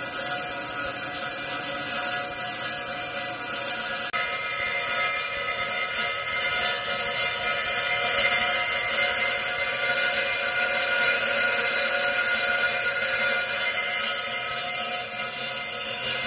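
Lapidary saw's diamond blade cutting through a labradorite slab, with a steady high-pitched grinding whine and hiss.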